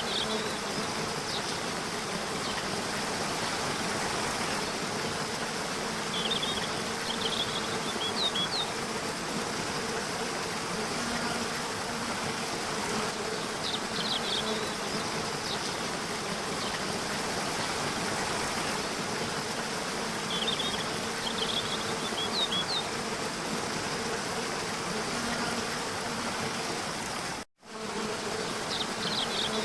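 Waterfall rushing steadily under a faint low hum, with short clusters of high bird chirps coming back about every seven seconds. The sound cuts out for a split second near the end.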